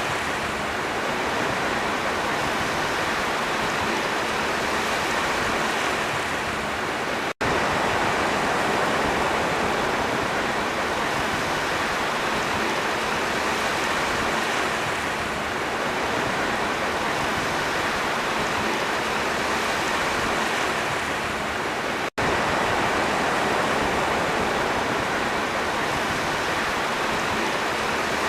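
Sea waves washing in a steady, continuous rush with no distinct breakers standing out, broken by two split-second dropouts, about 7 and 22 seconds in.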